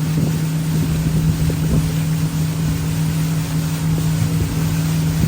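Motorboat engine running steadily with a constant low hum, with wind rumbling on the microphone.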